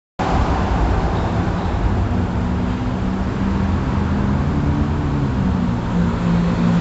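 Motor vehicle engines idling close by: a loud steady low rumble with a droning hum that cuts in suddenly just after the start.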